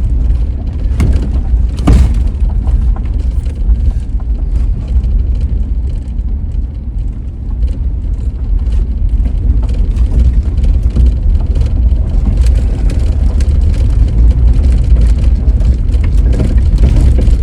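Old four-wheel-drive truck crawling along a rough dirt road: a steady, heavy low rumble of engine and tyres, with a few sharp knocks as it jolts over bumps, the loudest about two seconds in.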